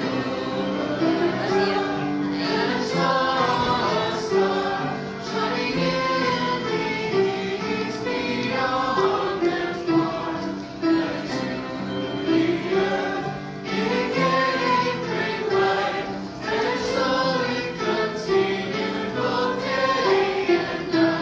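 A small group of carolers singing a Christmas carol together.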